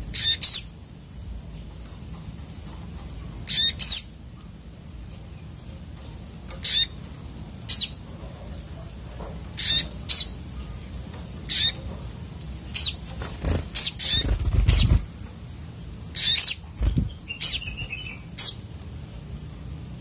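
Brown-throated sunbirds (sogok ontong) in a cage giving sharp, high chirps, short and single or in quick pairs, every second or two. Wing flutters and soft low thuds of the birds hopping and flying on the perches come in about two-thirds of the way through.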